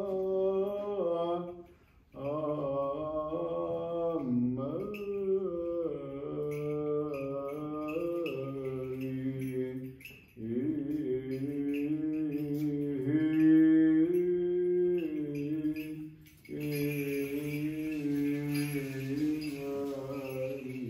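A man's voice chanting Greek Orthodox liturgical chant, drawn out on long held and gliding notes. It breaks off briefly for breath about two, ten and sixteen seconds in.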